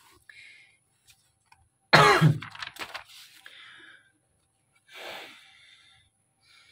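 A person clearing the throat with a sharp cough about two seconds in, with quieter paper rustling as a book page is turned.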